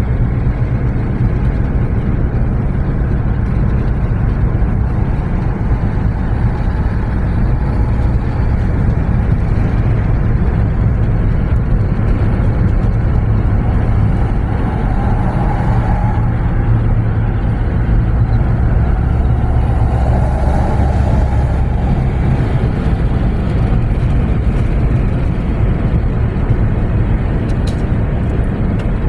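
Steady road noise of a car driving, heard from inside the cabin: a low rumble with tyre hiss, and two brief swells of noise about halfway through.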